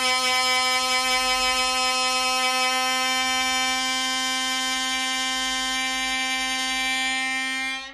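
Metal rubbing against metal, giving one steady, pitched squeal that holds its pitch and cuts off suddenly near the end.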